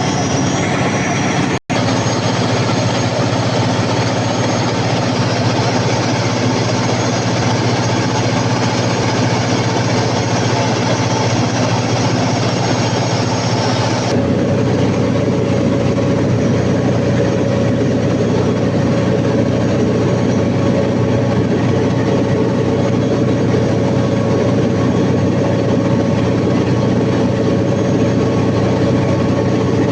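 Large Cummins KTA50 diesel generator engine running steadily and loudly, a dense drone with a low hum. The sound cuts out for an instant about two seconds in and changes tone about halfway through.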